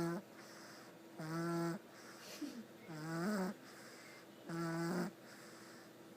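Two-week-old baby snoring: a short pitched snore about every second and a half, three in all, each lasting about half a second.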